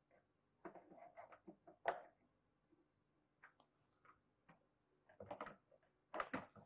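Faint clicks and scrapes of wires being worked off the terminal screws of an electric water heater's upper heating element, in small clusters with quiet between.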